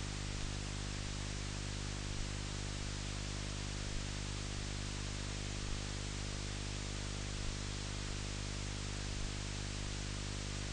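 Steady hiss with a low hum, the background noise of an old film soundtrack with no music playing, and a faint tick recurring about every second and three-quarters.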